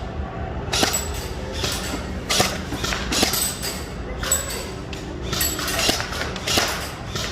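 Airsoft gun shooting at range targets: sharp snaps about once a second, with clinks and knocks as BBs hit the targets.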